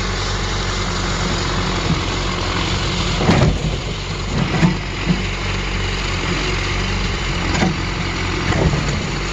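A heavy engine running steadily at idle, with a few short knocks and clanks over it.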